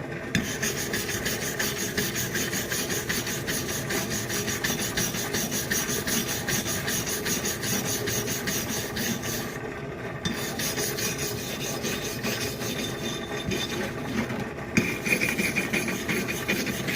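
Wire brush scrubbing rust off a steel axe head in quick, continuous scraping strokes, with two brief pauses.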